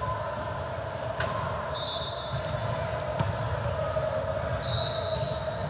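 Two sharp smacks of a volleyball being hit in a gym hall, about two seconds apart, over a steady hum. Two brief high-pitched tones sound in between.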